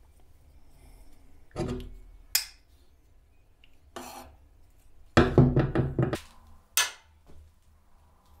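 A metal file and a wooden pencil knocking and clattering against each other and the workbench as they are handled: a few separate sharp knocks, then a louder run of several knocks about five seconds in, and a last sharp clack near the end.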